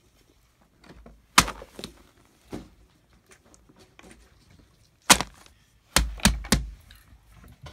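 Handling noise of fidget toys being set down on a paper sheet: sharp knocks and taps, one about a second and a half in, a weaker one near two and a half seconds, another about five seconds in, then three quick ones about a third of a second apart.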